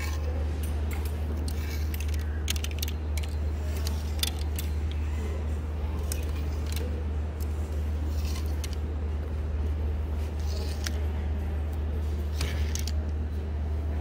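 Plastic clothes hangers pushed along a clothes rack by hand, clicking and clacking irregularly as they knock together and slide. A steady low hum lies under them throughout.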